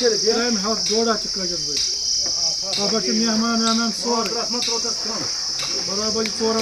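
Steady high-pitched insect chirring, with a voice over it whose pitch rises and falls, pausing briefly twice.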